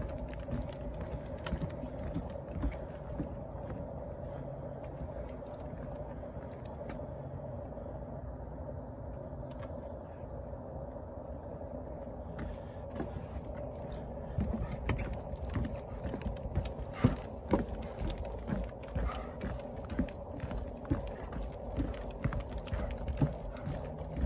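Footsteps and a dog's paws and claws knocking on the planks of a wooden boardwalk, over a steady hum. The knocks get louder and more distinct a little over halfway through.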